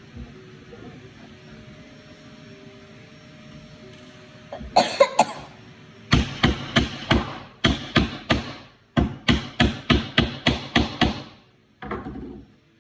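Hammer driving nails into the wooden panels of a birdhouse kit: a quick cluster of strikes about five seconds in, then a steady run of sharp blows at about three a second, a short pause, and a final blow near the end.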